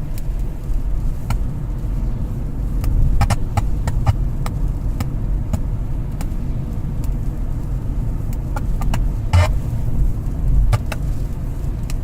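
Low steady rumble of a Kia cee'd driving, heard from inside the cabin, with scattered short clicks. The car radio's music has cut out, the sound problem this car has.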